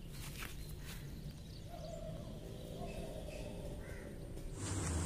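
Faint outdoor background with two light knocks in the first second and a drawn-out animal call, likely a bird, in the middle. Near the end the sound changes abruptly to a steady high hiss.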